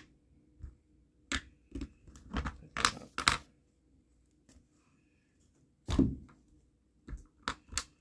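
Small hard resin pieces being handled and set down on a table: a run of separate clicks and knocks, with a louder thunk about six seconds in.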